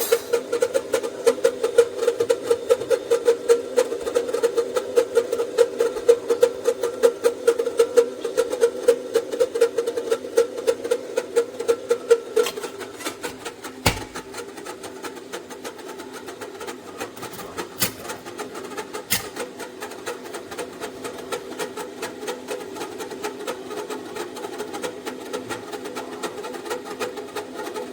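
Stainless steel stovetop kettle heating toward the boil, giving a rapid, even pulsing buzz for roughly the first twelve seconds that then settles into a steadier hum. A few sharp clicks are heard along the way.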